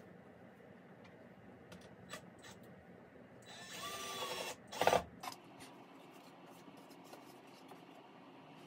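Cordless drill running into a wooden board for about a second, then a shorter, louder burst of the drill. Light handling clicks follow.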